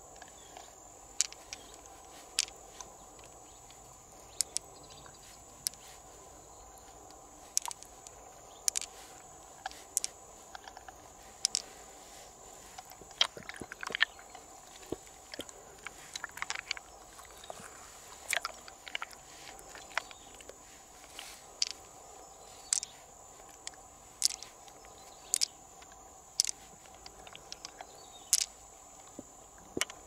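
Pearls clicking against one another as they are picked out of an opened freshwater mussel and dropped into a palm: short, sharp clicks about once a second, with softer wet scraping of the mussel flesh in the middle.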